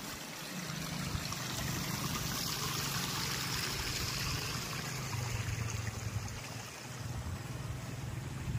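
Water running steadily, like a small stream, with a low steady hum underneath.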